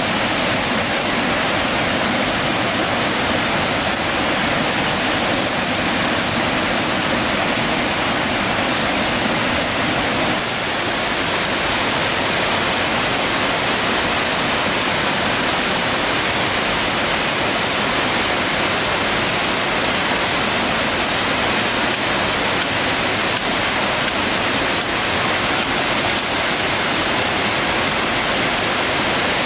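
Small waterfall on a rocky stream, water rushing in a loud, steady hiss; its sound turns slightly brighter about ten seconds in.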